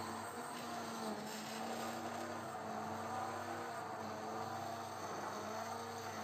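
Hand-held immersion blender running steadily in crêpe batter in a glass bowl, a continuous motor hum whose pitch wavers slightly as the blade works the flour, eggs and milk together.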